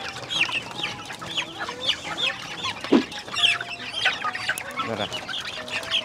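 A flock of Rhode Island Red and upgraded native hens calling as they feed at a trough: many short, high calls overlapping without a break, one louder call about three seconds in.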